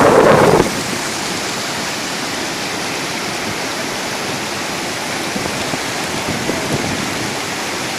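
Steady rushing of a large waterfall's falling water. There is a short louder burst of noise in the first half second.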